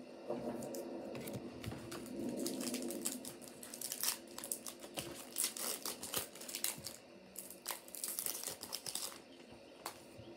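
Foil wrapper of a Topps Chrome baseball card pack being torn open and crinkled, a run of sharp crackles loudest from about four to nine seconds in.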